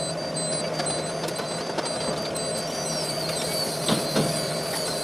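Tower crane working as heard from its cab: a steady machinery hum with a high electronic beep repeating a little more than once a second, and two short knocks about four seconds in.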